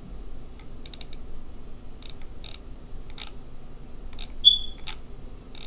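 Light clicks of a computer mouse, about eight spread irregularly, over a low steady hum. A brief high beep comes about four and a half seconds in.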